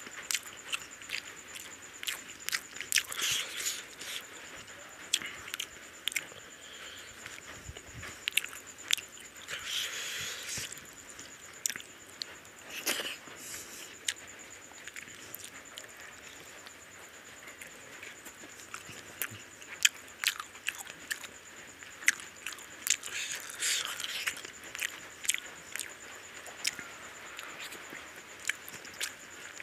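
Close-up chewing of a mouthful of rice and curry, with irregular wet mouth clicks and smacks, and sticky squelches of fingers mixing rice into curry gravy.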